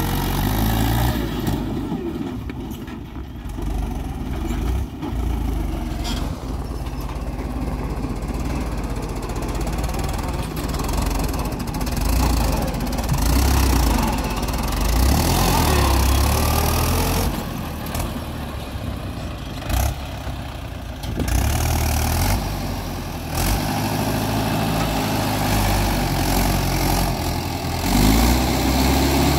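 Mahindra 575 DI XP Plus tractor's diesel engine running while it hauls a trolley loaded with earth. The pitch rises near the end as the trolley begins to tip and unload.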